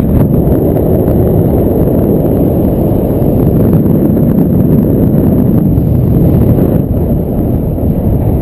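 Wind rushing over an action camera's microphone during a paraglider flight: a loud, steady, deep rumble with no breaks.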